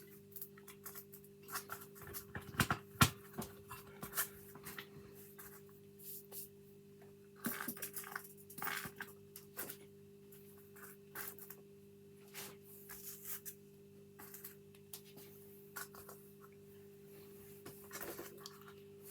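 Irregular clicks, taps and scrapes of an old gate lock's metal parts being handled and fitted back together, loudest about three seconds in, over a steady low hum.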